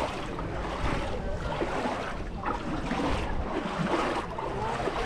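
Beach sound: shallow seawater washing over sand and around rocks, with the chatter of people on the beach.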